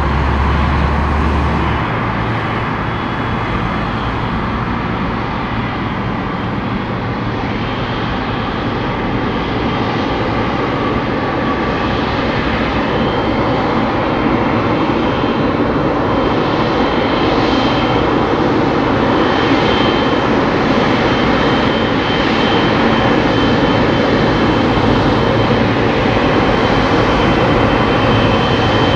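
Boeing 777 freighter's twin GE90 jet engines running at low taxi thrust. The sound is a steady rushing hum with a thin high whine, slowly growing louder as the aircraft turns toward the listener.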